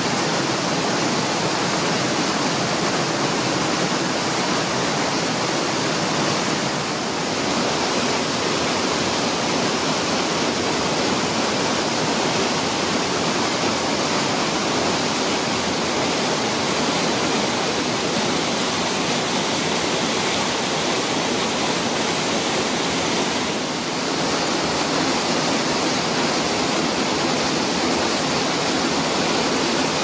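Waterfall in full flow plunging into a rock pool, a steady rushing of water.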